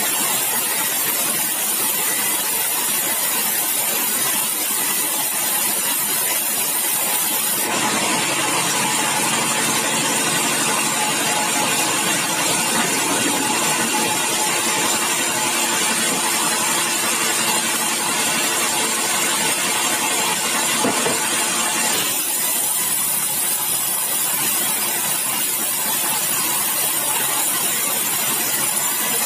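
Large sawmill band saw running, ripping a big bengkirai (Shorea laevis) timber as it feeds through on the roller carriage. The tone of the sawing changes about eight seconds in and changes back at about 22 seconds.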